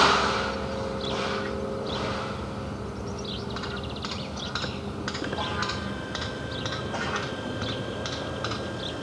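A church bell's ringing dies away over the first few seconds, its low hum lingering. After that come irregular short, high clicks.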